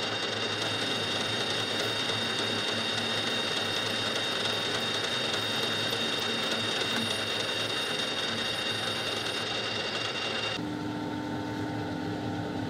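Metal lathe running while a carbide cutting tool turns down a metal workpiece: a steady machine drone with a high, even whine over it. About ten seconds in, the whine cuts off and a lower steady hum remains.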